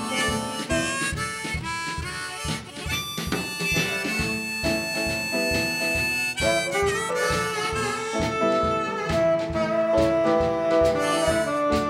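Blues band instrumental break: a tenor saxophone solo of held and moving notes over a steady drum beat and piano.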